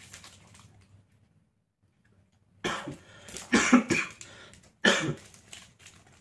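A man coughing several times in quick succession, starting about two and a half seconds in: the cough of a COVID-19 infection with an inflamed throat.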